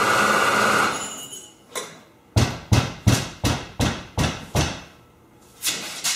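Someone banging on a garage door: a quick run of about seven loud bangs, a third of a second apart, with a couple more near the end. Before them, a steady machine whir cuts off about a second in.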